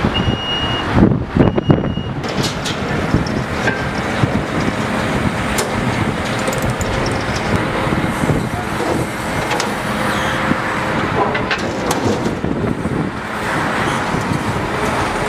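Heavy crane lorries' engines running steadily amid road traffic noise. Near the start come two short high beeps about a second and a half apart, with a few loud knocks between them.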